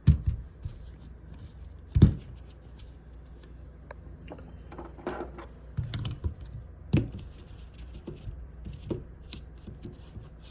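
Handling noises: rustling, clicking and scraping as a packaged multi-tool is handled, with two sharp knocks near the start and about two seconds in, and a lighter one later.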